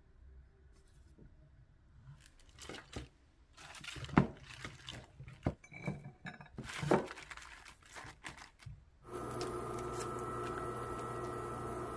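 Dishes and utensils clinking and knocking irregularly, then about nine seconds in a kitchen appliance starts up with a steady, even hum.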